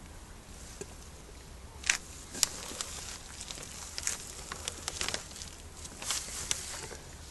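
Scattered short clicks, scratches and rustles of a puppy moving about and being handled, loudest about two seconds in, over a faint low hum.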